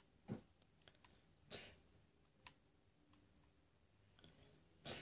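Near silence of a small room, broken by four short, soft clicks and noises spread through the few seconds, one near the end.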